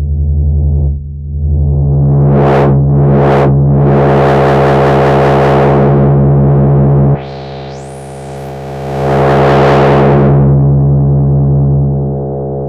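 Softube Model 72 software synthesizer, a model of the Minimoog, holding a sustained low note while its filter sweeps open and shut. There are two quick sweeps up and down about two to three seconds in, then a long wide opening. It cuts back abruptly about seven seconds in, and the filter then swells open again.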